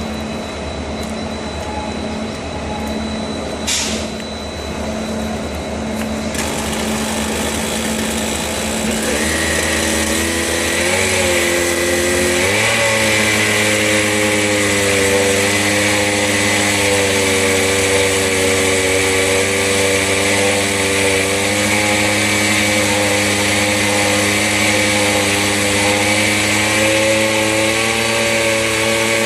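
Small gasoline engine of a portable rail drill running under load while the drill bores through a steel rail. The engine note shifts upward a third of the way in, then holds steady, with a hissing cutting noise above it. There is one brief sharp tick early on.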